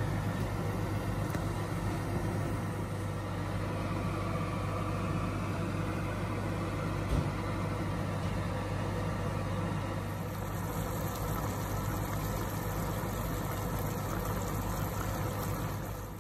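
Steady low machine hum with an even hiss over it, fading out at the very end.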